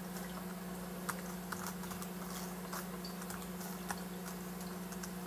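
Sparse, irregular key clicks on a computer keyboard as a command is typed, over a steady low hum.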